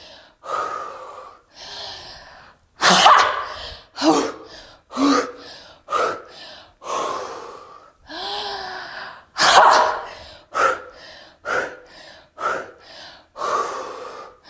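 A woman's forceful shouted 'Ha!' exhalations, each a sharp burst about a second apart, with drawn-in breaths between them. This is the rhythmic breathing of a cathartic wood-chopping breathing exercise, one burst to each imagined axe stroke.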